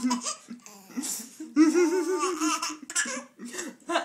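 Baby laughing hard in bursts of quick, pulsing chuckles, with breathy gasps for air in between.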